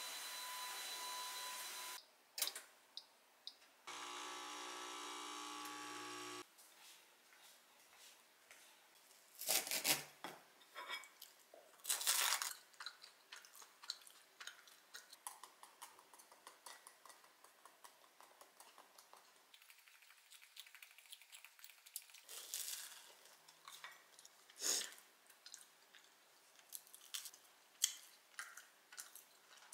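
A vacuum cleaner running steadily with a faint whine cuts off about two seconds in, and a low electric hum follows for about two seconds. After that come quiet eating sounds: chopsticks and a ceramic plate clinking, and chewing of salt bread, with scattered sharp clicks and a few louder knocks.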